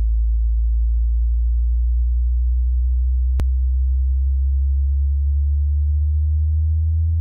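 Space-sound sonification: a deep, steady electronic hum under a stack of fainter tones that slowly rise in pitch, with a single sharp click about three and a half seconds in.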